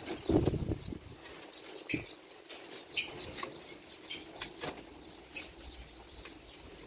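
A shovel digging into soil around a shrub's roots: a series of knocks and scrapes, roughly one a second. Small birds chirp in the background.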